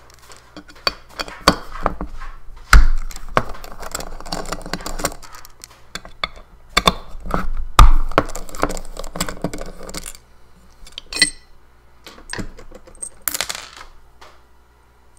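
Small metal parts and a hand tool clicking and clinking against a hard drive's metal base and spindle motor while it is worked at, with two sharper knocks about three and eight seconds in. It thins out to scattered clicks in the last few seconds.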